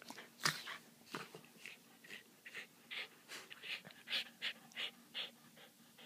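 Corgi puppies panting in quick, short breaths, about two or three a second, as they play-wrestle right against the microphone.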